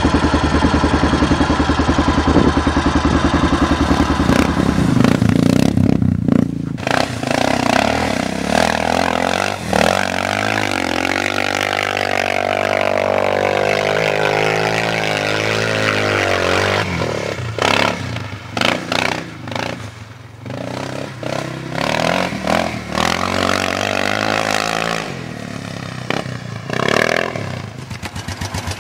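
Suzuki DR750's big single-cylinder four-stroke engine. It first runs steadily close up, then is ridden off-road and passes by, its pitch sweeping down and up. Near the end come uneven bursts of throttle.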